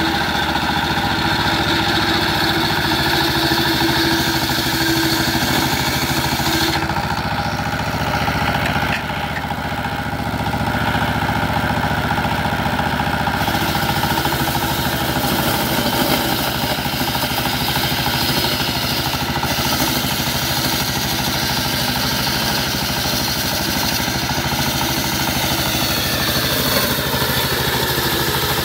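Single-cylinder diesel engine running steadily, driving a table circular saw that rips a plank of sonokeling rosewood. The high cutting hiss fades for several seconds about a quarter of the way in, and near the end a whine drops in pitch.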